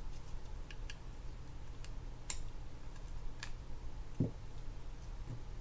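Metal tweezers and small metal reel parts clicking as they are picked out of a spinning reel's gearbox and set down on the work mat: a few scattered light clicks, the sharpest two a little over a second apart, then a soft low thump about four seconds in.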